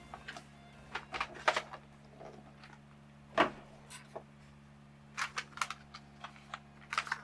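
Ceramic keycaps being pressed onto and handled on a mechanical keyboard: scattered, irregular sharp clicks, with one louder clack about three and a half seconds in.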